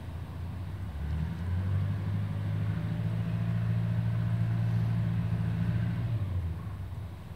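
A low, steady engine hum that swells about a second in, holds without changing pitch, and fades away after about six seconds.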